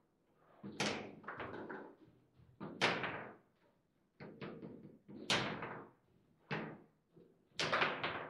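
Table football (foosball) in play: the hard ball struck by the rod figures and knocking off the table walls, with the rods clacking. It comes as a string of sharp, irregularly spaced knocks, the loudest about three seconds in.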